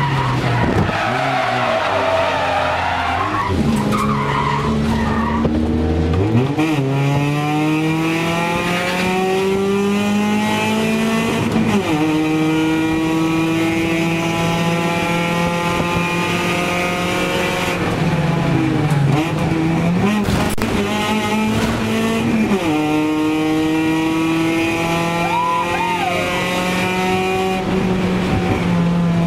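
Race car engine heard from inside the cabin, pulling hard through the gears: its pitch climbs and drops sharply at each gear change, about four times. Tyres squeal in a slide during the first few seconds.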